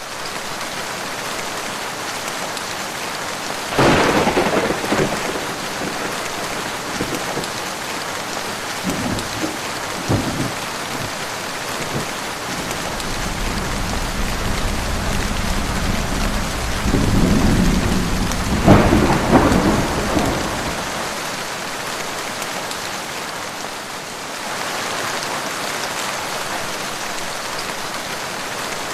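Heavy rain falling steadily, with thunder: a sharp crack about four seconds in, lower rumbling near the middle, and a second loud crack with a long rumble around two-thirds of the way through.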